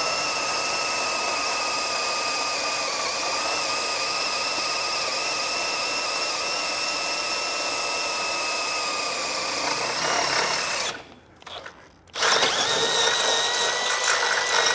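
Cordless drill with a 3/8-inch bit boring out a hole in a vehicle's metal frame bracket. The motor's steady whine holds for about eleven seconds, stops for about a second, then starts again at a higher pitch.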